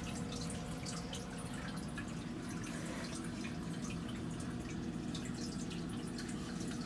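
Water dripping and trickling in a reef aquarium sump: small irregular drips, several a second, over a steady low hum of running equipment.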